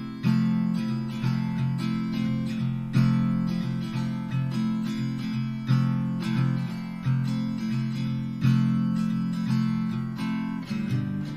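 Background music: acoustic guitar picked and strummed in a steady rhythm, with a strong stroke about every second and a half.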